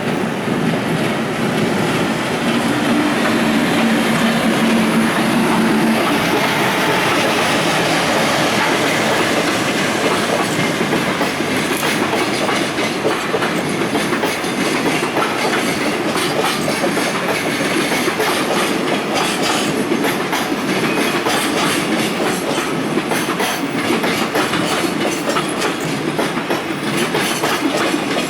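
JR Freight EF510 electric locomotive and its long string of Koki container wagons rolling past, with a steady low hum in the first few seconds and then a continuous clickety-clack of wagon wheels over the rail joints.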